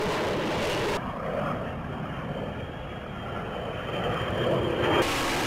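Jet noise from an F-35B, its F135 engine and lift fan running in the hover. About a second in it switches abruptly to a duller recording of the jet in flight that swells near the end, then back to the hover noise.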